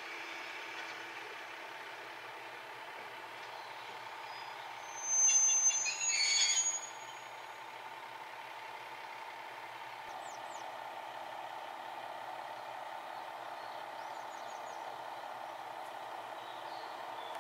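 KiHa 120 single-car diesel railcar running steadily in the distance, a low, even hum. About five seconds in, a loud, high-pitched two-part sound cuts across it, and faint bird chirps come later.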